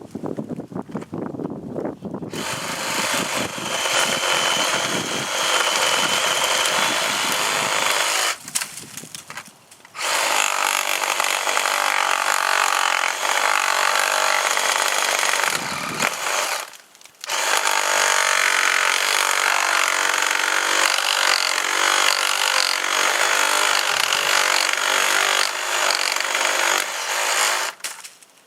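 Ryobi PCL515B 18V cordless reciprocating saw cutting through tree limbs with a wood blade. It runs in three long bursts, stopping briefly twice in between, before the cut is finished.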